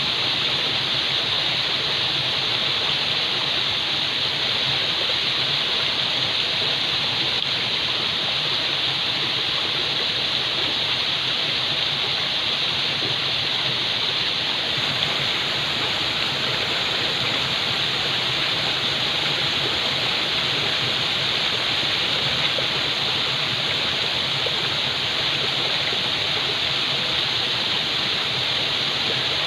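Falling water rushing in a steady, unbroken hiss, brightest in the upper register, with no changes or separate splashes.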